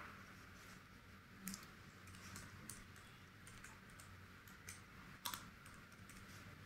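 Faint, irregular clicks of computer keys being typed, a few scattered keystrokes with one slightly louder click about five seconds in.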